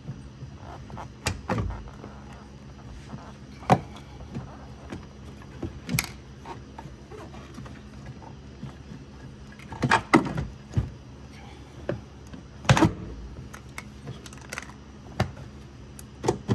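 Irregular knocks and clunks as a car battery is handled and shifted in its tray, the loudest about ten and thirteen seconds in.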